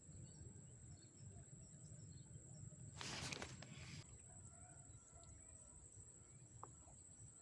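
Near silence: faint outdoor ambience with a low rumble and a steady high-pitched whine, broken by a brief rush of noise about three seconds in.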